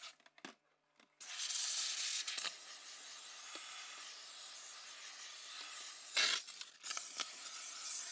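Pur Steam handheld steamer hissing steadily as it blasts steam onto ice on a refrigerator's evaporator coils to defrost them. The hiss is cut for about a second near the start and swells briefly around six seconds in.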